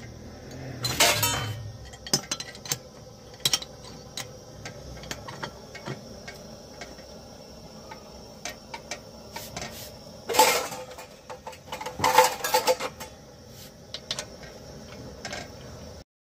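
Aluminium pressure cooker lid being set on and its clamp bar screwed down: clusters of metal clinks and scrapes, loudest about a second in and again around ten and twelve seconds in, with scattered small clicks between.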